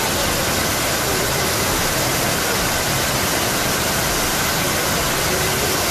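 Floodwater torrent rushing down a steep street channel: a steady, loud rush of water.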